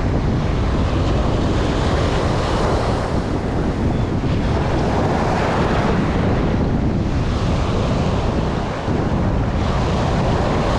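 Ocean surf breaking and washing up over the sand, a continuous hiss that swells and eases every few seconds, with wind buffeting the microphone.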